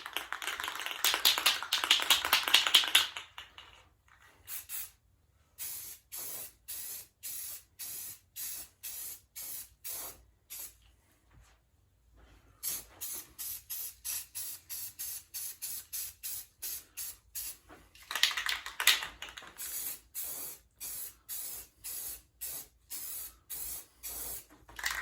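Aerosol spray-paint can (flat black paint-and-primer mix) spraying: one continuous hiss for about three seconds, then many short hiss bursts, about two a second, with a brief pause partway through and a longer burst near the end.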